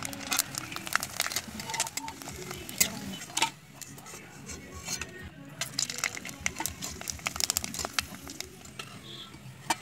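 Flat metal spatula scraping and clattering against a metal wok in a run of sharp clicks and scrapes, while sun-dried potato chips fry in a little hot oil and are scooped out.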